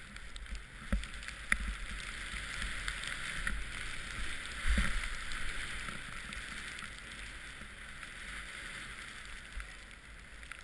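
Steady hiss of a rider sliding fast through deep powder snow, with a couple of low thumps, one about a second in and one near the middle.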